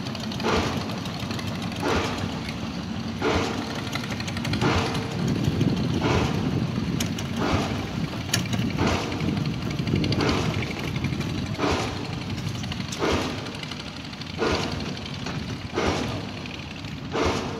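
Small boat's engine running steadily with a low rumble, and a sharp knock or slap that repeats about every second and a half.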